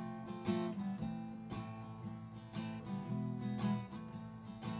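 Background music with a strummed acoustic guitar, chords struck about once or twice a second.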